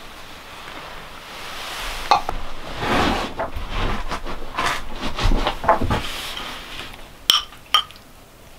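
Rustling and knocks on a wooden table and bench as someone sits down with a meal, then two sharp clinks near the end as a metal spoon strikes a ceramic bowl of beans.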